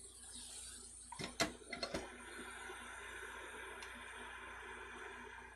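Steady rushing hiss of a hot air rework station blowing on a circuit board while capacitors are desoldered, with a few sharp metal clicks about a second and a half in.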